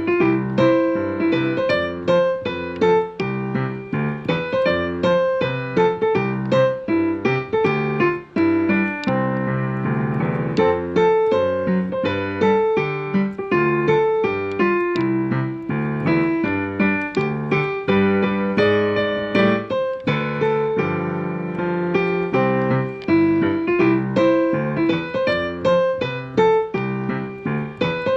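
Background music: a quick, busy piano or electric-piano melody playing steadily throughout.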